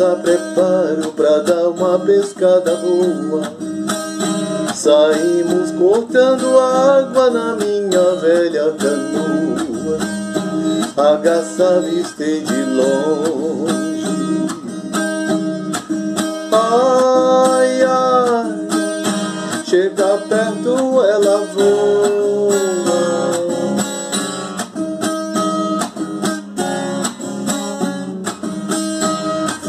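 A man singing while strumming an acoustic guitar in a steady rhythm, his voice gliding between long held notes.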